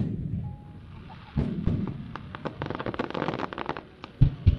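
Aerial fireworks going off: a long run of rapid crackling pops from about a second and a half in, then two deep booms close together near the end.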